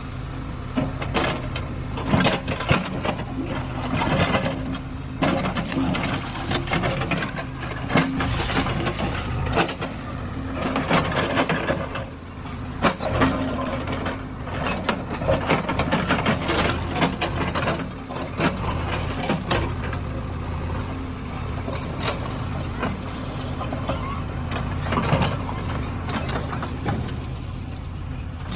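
Heavy diesel engine running steadily, with frequent sharp knocks and clattering impacts over it.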